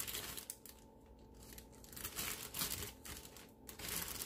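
A plastic bag of frozen broccoli crinkling in several short bouts as it is handled and the florets are taken out.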